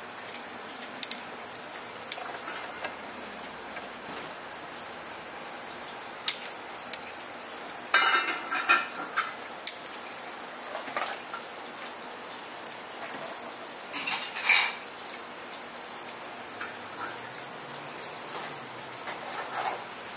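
Metal engine parts clicking and clinking by hand while a piston is fitted into a Mercury Verado outboard cylinder block, with scattered single clicks and two louder clattering spells, over a steady hiss. Near the end, sharp evenly spaced taps begin as the piston is driven into its bore with the end of a hammer handle.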